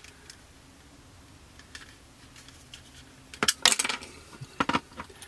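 A square glass bottle of plastic cement being opened, its green plastic lid clicking and clinking against the glass: a quick cluster of sharp clicks about three and a half seconds in and two more a second later. A few faint ticks from handling plastic model parts come before.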